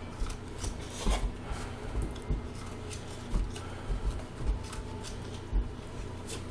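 A dog jumping and snapping at soap bubbles: irregular clicks and soft thumps.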